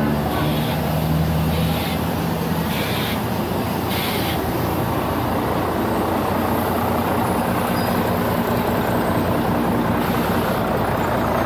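Street traffic: the steady, loud noise of vehicles running, with a low engine hum in the first couple of seconds and four short hisses about a second apart during the first four seconds.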